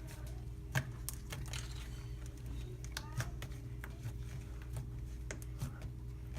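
Butter slime being played with by hand: scattered soft clicks and pops as it is squished and stretched, over a steady low hum.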